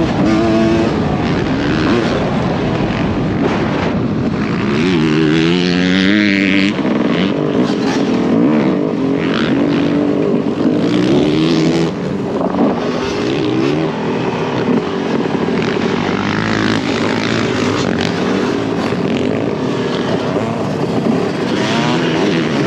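Dirt bike engines revving on a motocross track, their pitch repeatedly rising and falling as they speed up and back off, with a strong climb about five seconds in.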